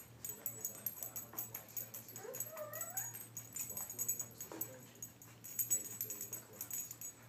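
A small cloth blanket rustling, with light clicks and knocks, as it is handled over a wooden toy doll cradle. A brief high, rising squeal comes about two and a half seconds in.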